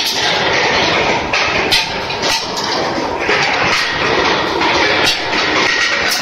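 Steel-ball production line running: a steady mechanical clatter and rumble with irregular sharp clanks every second or so, as hot steel grinding balls roll through the chutes and ride the bucket hoist.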